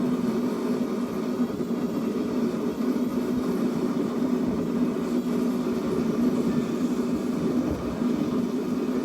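A steady machine drone with a constant low hum, with no hammer blows.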